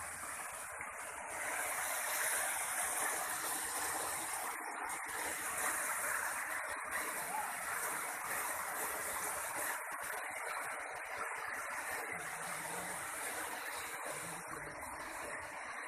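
Steady rush of falling water from a waterfall, growing a little louder after the first second or two.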